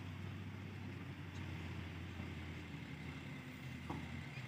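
Heavy diesel engines of mine tipper trucks and a bulldozer running steadily as a low hum, with a brief falling squeak about four seconds in.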